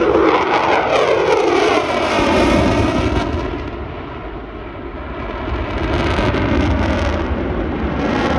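Military fighter jet flying past: loud jet engine noise with a whine that falls in pitch as it goes by, easing off about four seconds in, then growing louder again.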